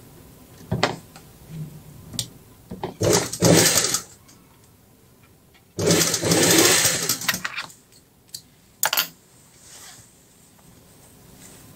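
Industrial sewing machine stitching a seam in two short runs, the first about a second long and the second nearly two seconds. Between the runs there are quieter moments of fabric handling and a few short clicks.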